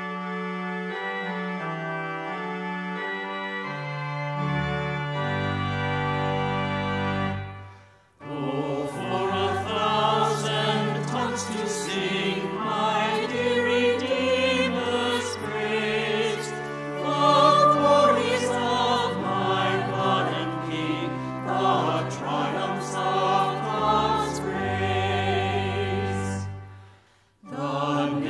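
Organ playing sustained chords that stop abruptly about eight seconds in, then a choir singing a hymn with vibrato over organ accompaniment, with a brief break near the end.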